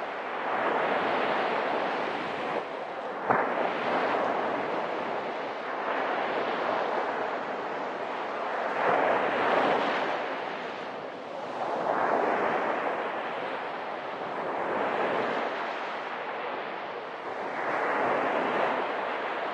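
Sea surf breaking on a sandy shore, the rushing noise swelling and falling back every few seconds as each wave comes in. There is a brief click about three seconds in.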